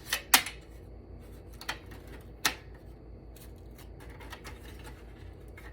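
A few sharp clicks and knocks of hard computer parts being handled on a workbench. The two loudest come at the very start, then two more about a second apart and some fainter ticks, over a low steady hum.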